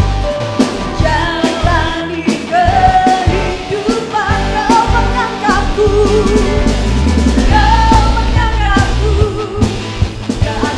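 Worship band playing a pop-rock praise song: a singer carrying the melody over keyboard, electric guitar, bass guitar and drum kit.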